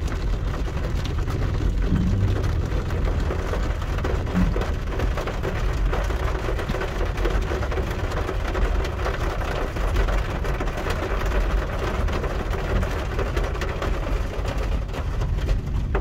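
Rain falling on the car, many small drop ticks over a steady hiss, with the low rumble of the car driving underneath.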